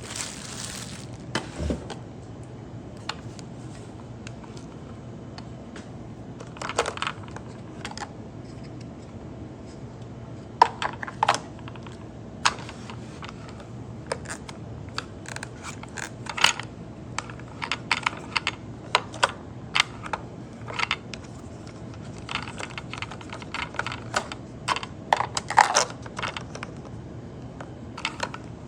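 Scattered sharp clicks and taps at irregular intervals, thickest in the second half, over a low steady hum.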